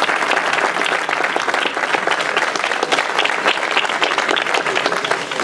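Audience applauding: many hands clapping in a dense, steady patter that thins out near the end.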